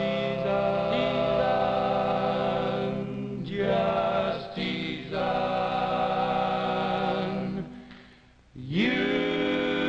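Male vocal quartet singing long-held close-harmony chords in barbershop style. The chords break briefly twice, then fade out near the end before a new chord swells in with a rising slide.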